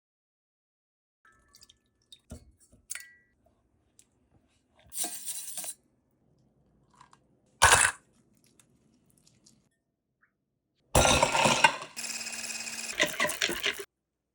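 Kitchen preparation sounds: small clicks and clinks, a short noisy pour or splash, one sharp loud knock, then a loud noisy stretch of about three seconds near the end.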